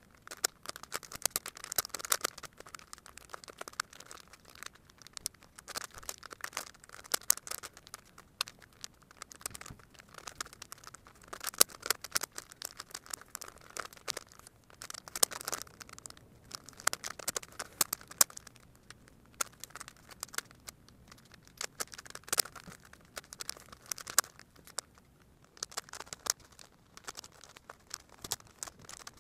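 Plastic Megaminx puzzle being turned quickly by hand: bursts of rapid clicking and clacking as its faces rotate, with short pauses between the bursts.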